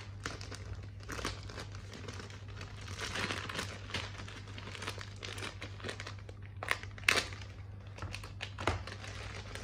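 Clear plastic kit bag crinkling as it is handled and cut open with a hobby knife to get the plastic model runners out. A few sharp clicks come near the end.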